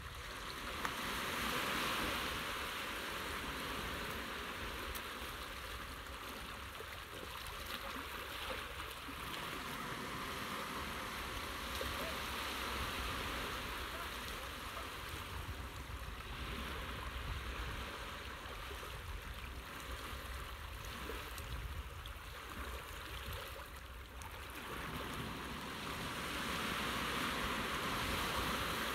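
Sea water rushing and washing, a steady noise that swells and eases every few seconds over a low rumble.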